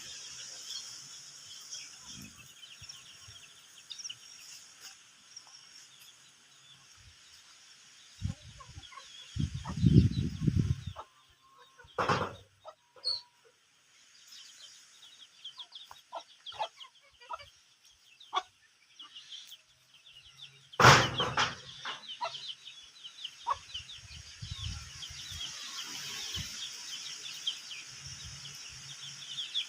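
Chickens clucking over a constant high chirping, with a few sharp knocks, the loudest about twelve and twenty-one seconds in, and a short low rumble around ten seconds in.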